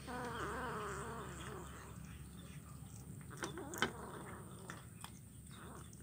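A cat gives a drawn-out, wavering call lasting about a second and a half at the start. Then a kitten chews and crunches fish bones off a plate, with a few sharp clicks, the loudest shortly past the middle.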